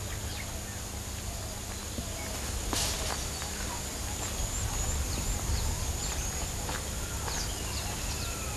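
Outdoor bush ambience: scattered short bird chirps and whistles over a steady high-pitched whine and a low rumble, with one sharp click about three seconds in.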